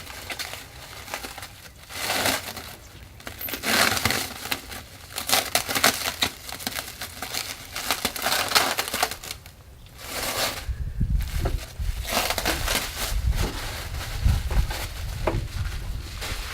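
Crinkling and rustling of the plastic-coated, resin-impregnated liner as its roll is handled and unwrapped, coming in irregular bursts. From about ten seconds in it turns into lower bumps and rumbling handling noise with a few sharp clicks.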